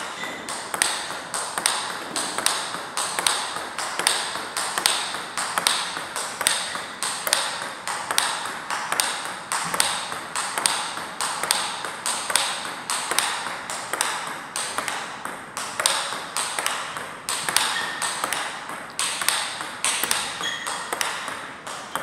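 Table tennis play: the celluloid-type plastic ball clicking off rubber paddles and bouncing on the table in a steady run of sharp clicks, two or three a second.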